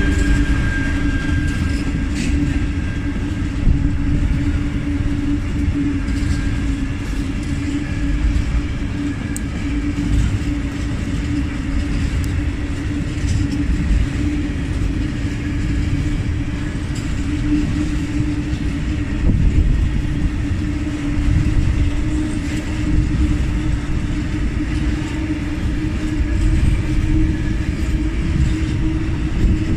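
Tank wagons of a freight train rolling past close by: a steady rumble of wheels on the rails, with a steady humming tone running under it.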